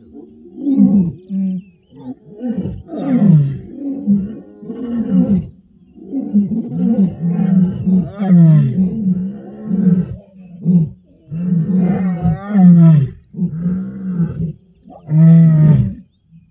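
A lioness calling: a long bout of deep roars and grunts, one after another, about one or two a second with short breaks between runs.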